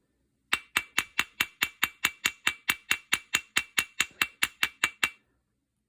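Small hammer striking a rust-seized, burred steel screw head in an even run of about four light blows a second, each with a short metallic ring, for about four and a half seconds. The blows peen the burred head flat to close up its slot, and the percussion helps free the rusted screw.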